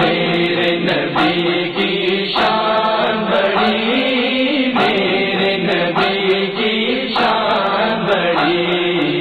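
Chorus of voices chanting a short phrase over and over, the wordless backing-vocal interlude of an Urdu naat.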